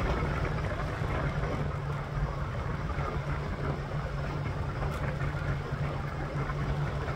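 Scooter riding steadily along a road: a constant low hum from the drive, with wind rushing over the microphone.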